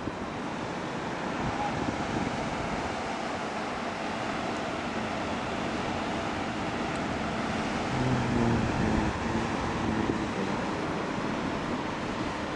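Wind rushing over the camera microphone high on a parasail, a steady noisy roar. A faint low hum comes in briefly about eight seconds in.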